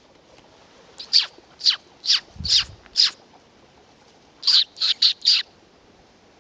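A series of loud, high calls, each sweeping sharply down in pitch: five spaced about half a second apart, a pause, then four quicker ones. A brief low thump sounds under the third call.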